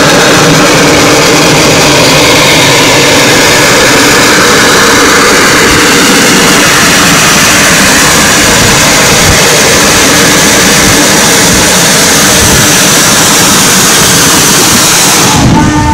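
Steam locomotive running close by at speed: a loud, steady rushing noise of exhaust and running gear.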